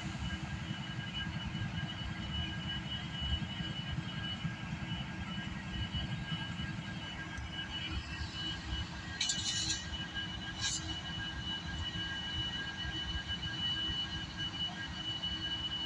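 Union Pacific diesel locomotives running in a rail yard: a steady low engine rumble with a steady high-pitched tone over it. Two brief bursts of high noise come about nine and ten and a half seconds in.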